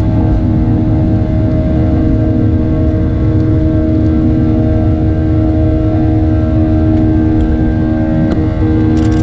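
Boeing 737-700's CFM56-7B turbofan engines at full takeoff power, heard from inside the cabin: a loud, steady drone with a held fan hum over a deep rumble.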